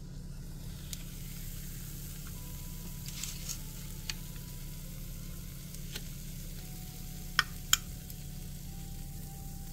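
Cheese-and-egg chaffle sizzling in an opened Dash mini waffle maker, with a few sharp clicks of a metal fork against the hot plate as the chaffle is lifted out; the two loudest clicks come close together near the end.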